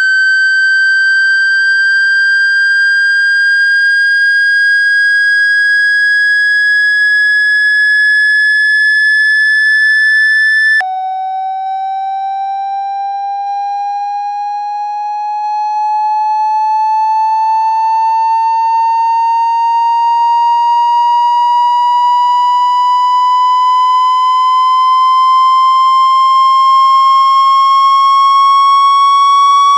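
Electronic water-eject tone for clearing water out of a phone speaker: a single synthetic tone with overtones, slowly rising in pitch. About eleven seconds in it drops suddenly to a much lower, quieter pitch, then climbs slowly again and grows louder.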